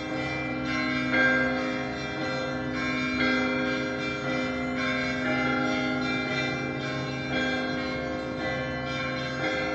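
Church bells ringing: several bells of different pitch struck one after another, their notes overlapping and hanging on.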